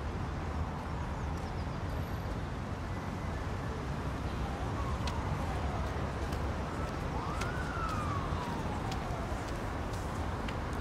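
Steady street traffic noise with a faint siren wailing, its pitch rising and then falling slowly through the second half.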